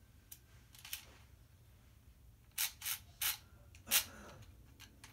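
Handling noise: short clicks and rustles. Two faint ones come early, then four louder ones in quick succession in the second half, the last the loudest.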